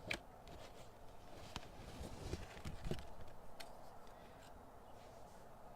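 Light handling noises: soft rustles and a few sharp clicks as skeins of embroidery floss on cardboard cards are picked up and turned over.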